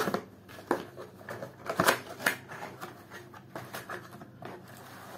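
A small cardboard box being opened by hand: flaps pulled and scraping, with irregular sharp clicks and rustles, loudest about two seconds in.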